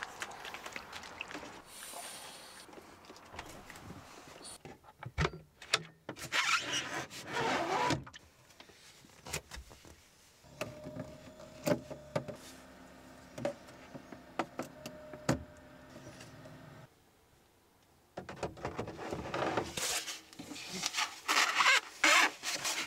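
Clicks, knocks and rubbing from plastic water tanks being handled, wiped and slid into a cabinet, with a faint steady hum for a few seconds in the middle.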